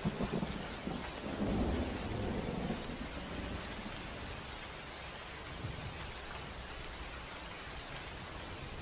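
Heavy rain falling steadily on a tent. There is a deeper low rumble in the first few seconds, which then settles into an even hiss of rain.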